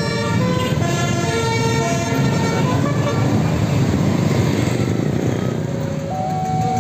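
A tour bus's multi-note musical air horn (telolet horn) plays a tune of short held notes over road traffic, stopping about three seconds in. Engine and traffic noise go on after it, and near the end a steady tone starts, alternating between two pitches.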